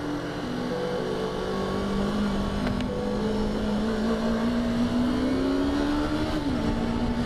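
Yamaha YZF-R3's parallel-twin engine running under the rider. Its pitch climbs slowly as the bike gathers speed, then falls suddenly near the end.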